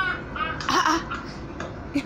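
A man's high, cackling laughter played from a phone video: a pitched burst at the start, then a loud, breathy wheeze just under a second in.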